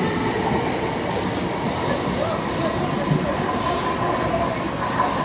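A train running on the rails, a steady loud noise of wheels on track with several brief high-pitched squeals.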